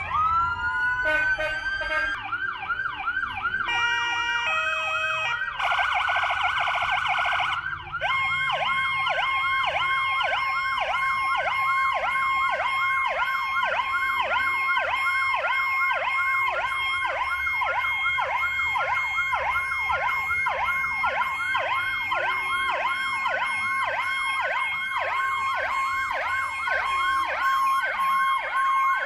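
Emergency-vehicle electronic sirens sounding together. A rising wail comes first, then a few stepped tones and a harsh buzzing horn blast about five to seven seconds in. From about eight seconds on, a fast yelp cycles about three times a second over a steady high tone.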